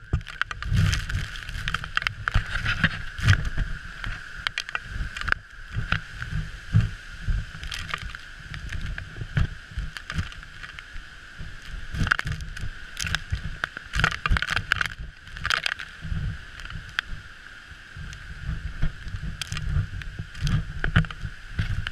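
Storm wind buffeting the microphone on a ship's deck in heavy seas, in irregular gusty surges, with a steady high whistle of wind underneath.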